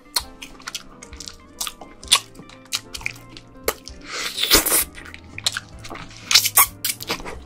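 Close-miked eating of steamed snow crab legs: wet smacks, clicks and crunches as the meat is bitten and pulled from the shell, with two longer, louder slurps about four and six and a half seconds in. Soft background music plays underneath.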